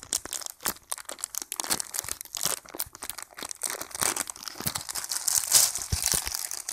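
Thin clear plastic bag crinkling and crackling as it is opened and a TV remote control is pulled out of it: a rapid, irregular crackle, loudest near the end.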